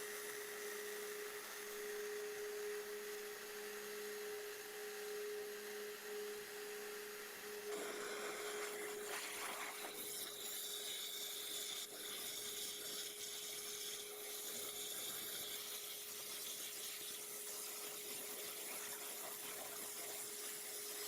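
Waterjet cutter cutting metal plate: a steady hiss with a steady hum underneath, the hum dropping away about eight seconds in.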